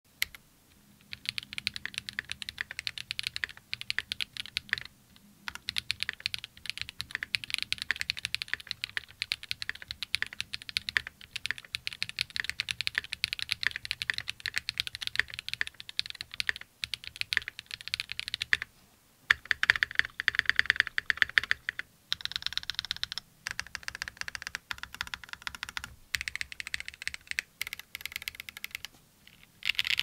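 Typing on a Zoom75 mechanical keyboard with a carbon-fibre plate, plate foam, Owlab Neon switches and GMK keycaps: dense runs of quick key clacks, broken by a few brief pauses.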